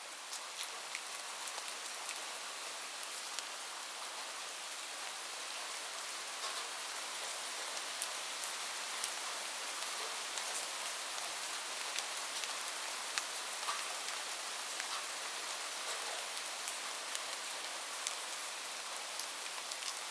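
Light rain falling steadily, a constant soft hiss with scattered individual drops ticking on a surface. It swells up over the first second or two, then holds even.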